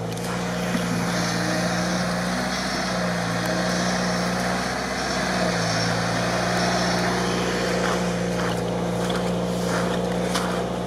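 Engine of a heavily modified UAZ off-roader running at steady low revs as it crawls through marsh in low range. The pitch dips for a couple of seconds in the middle, then returns.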